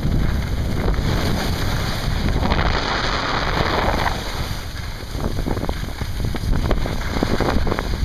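Wind rushing over the microphone at skiing speed, mixed with the hiss and scrape of skis turning on packed, groomed snow. The hiss is stronger for a second or so about two and a half seconds in.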